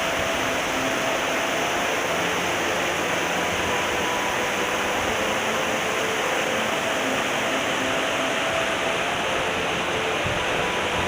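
Waterfall and fast mountain stream rushing, a steady even roar of water.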